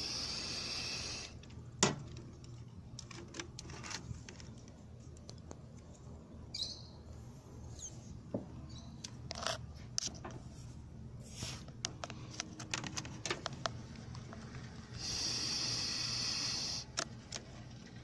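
Two hisses of air, each a second and a half to two seconds long, one at the start and one about fifteen seconds in, over a steady low hum, with scattered small clicks and knocks in between.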